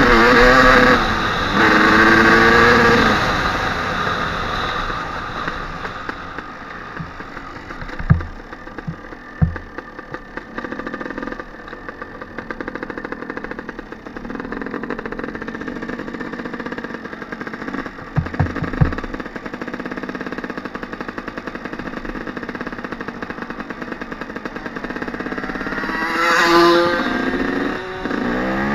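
Suzuki RM250 two-stroke dirt bike engine revving hard and rising in pitch, then running at a steadier cruise. A few short thumps come in the middle, and the engine revs up again near the end.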